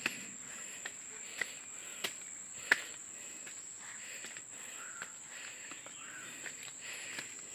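Insects, crickets most likely, trilling steadily at a high pitch, with short sharp clicks scattered through, the loudest a little under three seconds in.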